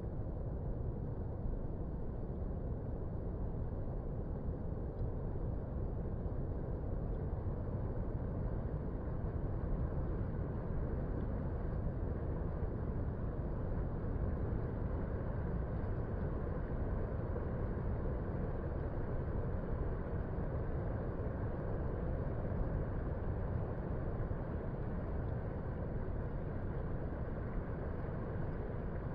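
Distant ocean surf breaking on a beach at low tide: a steady low rumble with no separate breakers standing out.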